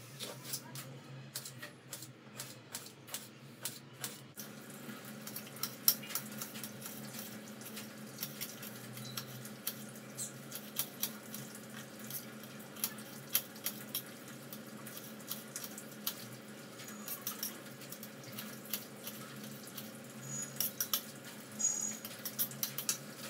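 Hands peeling boiled potatoes and crumbling them on a steel plate: irregular small clicks and taps of fingers and potato pieces against the metal, with soft wet squishing, over a faint steady hum.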